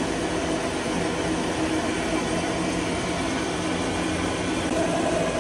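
Engine lathe running: a steady mechanical noise with a faint, even hum.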